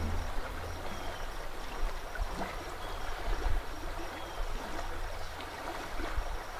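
Outdoor ambience: a steady rushing noise over a low rumble, with a few faint, brief high chirps.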